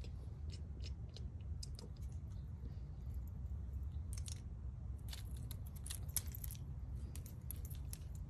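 Scattered light clicks and crunches of loose gravel being shifted, thickest a few seconds in, over a low steady rumble.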